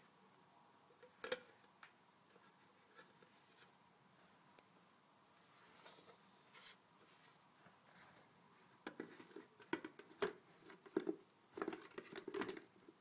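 Light clicks and knocks of something being handled, sparse at first, then a quick run of clattering knocks from about nine seconds in. No motor is running.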